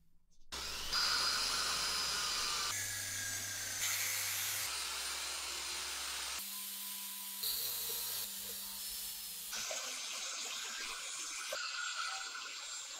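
Electric angle grinder fitted with a foam polishing pad, running and buffing compound on a painted motorcycle panel: a steady motor whine with a rubbing hiss. It starts about half a second in, and its pitch and tone shift abruptly several times.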